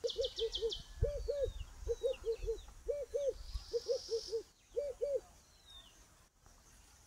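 A dove cooing: a rhythmic run of soft hooting coos in alternating groups of four and two, ending about five seconds in. Small birds chirp faintly above it.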